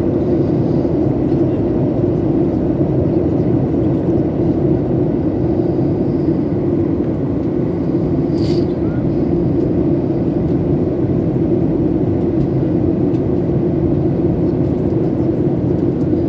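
Steady, loud cabin noise of a jet airliner in flight, the low drone of the engines and airflow heard from a window seat over the wing while descending. One brief click about eight seconds in.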